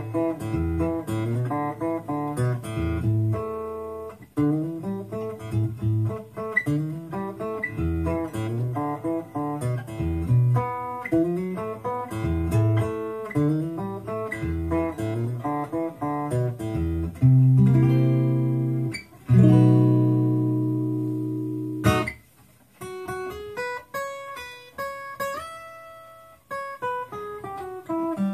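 Handmade acoustic guitar played through an LR Baggs Anthem-SL pickup and an acoustic amp. It starts with a fingerpicked line of single notes. About two-thirds of the way in come two deep bass notes, each left to ring out, and a higher picked melody follows near the end.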